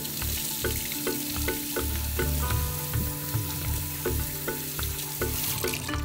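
Kitchen tap running a steady stream of water onto red lentils in a stainless mesh sieve, a continuous splashing hiss while the lentils are rinsed and stirred by hand. Background music plays throughout.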